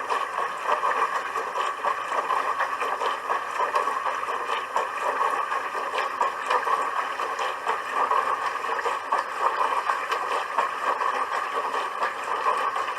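Dishwasher running its wash cycle: a steady rush of water spraying inside the tub, dotted with many small splashes.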